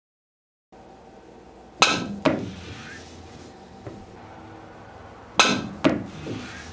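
Sharp clacks of a cue with a hard phenolic tip striking the cue ball on a pool table, coming in two pairs about half a second apart, with a few seconds between the pairs.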